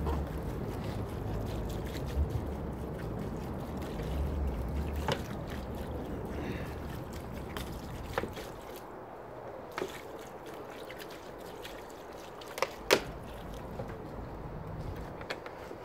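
Wind rumbling on the microphone, easing off about halfway through, with a few sharp clicks, the loudest near the end.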